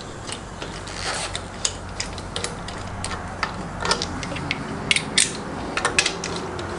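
Wheel nuts being spun by hand onto a Mazda BT-50's wheel studs: irregular light metallic clicks and rattles of the threads and nuts, started by hand so they don't cross-thread.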